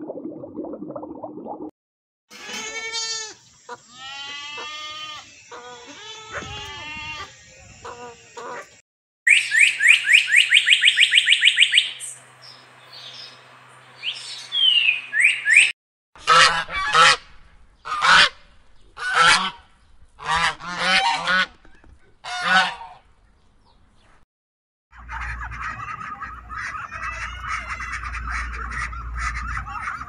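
A string of different bird calls, one clip after another: calls that curve in pitch, a fast run of high repeated chirps, then about seven short honks from black swans, and near the end a steady background with faint calls.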